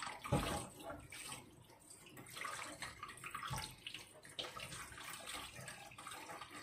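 Water running from a kitchen tap, with two dull thumps, the first about half a second in and the louder of the two.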